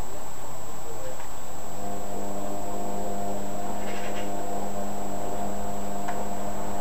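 A steady electrical hum with several tones comes in about two seconds in over constant background noise, with a few faint clicks of a pick and tension wrench working the pins of a padlock.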